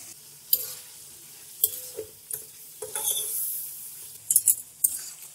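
Metal spatula scraping and clinking against a metal karahi while beef karahi is stirred, the meat sizzling as it fries dry. There are about eight sharp scrapes, some in quick clusters, with a longer scrape near the middle.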